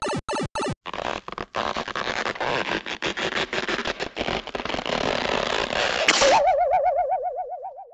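Cartoon sound effects: three short blips, then a long noisy, clattering commotion, giving way about six seconds in to a wavering, wobbling tone.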